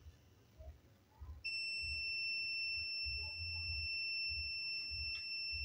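Steady high-pitched electronic beep from the satellite receiver, starting about a second and a half in and holding unbroken, as the blind scan completes and the save prompt comes up.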